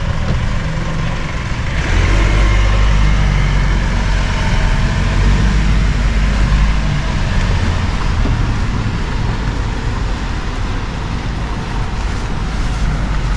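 Road traffic rumble, with a vehicle's engine running close by, growing louder about two seconds in.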